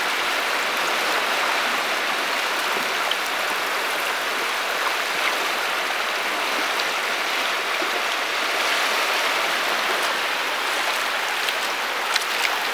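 Shallow seawater washing over sand at the water's edge: a steady, even hiss, with a few small ticks near the end.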